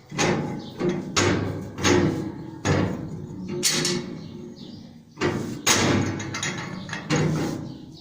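A series of sharp knocks and bangs, about nine over eight seconds, each ringing out briefly after the hit.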